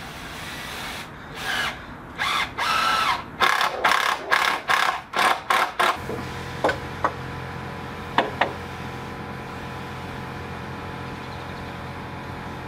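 Power drill driving a screw into the wooden pergola brace in a run of trigger pulls, the first ones longer and the last ones short and quick. The drilling stops about halfway through, followed by a few light clicks.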